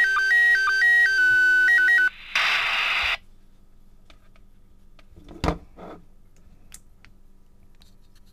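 A clean electronic tone pattern stepping back and forth between two pitches about twice a second, stopping about two seconds in. It is followed by a short burst of static from the Baofeng UV-5R handheld radio, then quiet with a few light clicks and a single knock.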